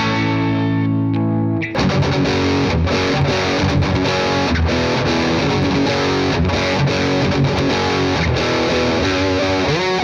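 Electric guitar played through a Victory Sheriff 25 valve amp with overdrive. A held chord rings for about the first second and a half, then a fast driven run of chords and notes starts.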